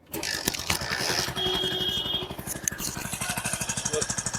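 A freshly rebuilt Hero HF Deluxe's single-cylinder four-stroke engine starts up and settles into an even idle of rapid regular firing pulses. The idle is clean and quiet, with no abnormal engine noise after the rebuild.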